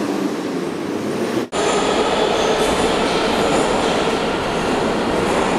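Moscow Metro train running along a platform. After an abrupt cut about a second and a half in, the steady noise of a metro train in an underground station continues, with faint high wheel squeals coming and going.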